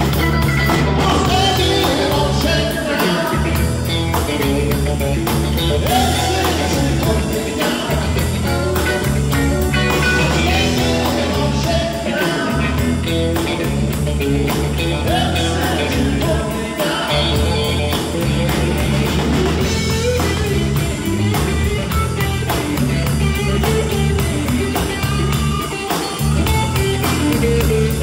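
Blues-rock band playing live, with singing over the band and a steady drum beat.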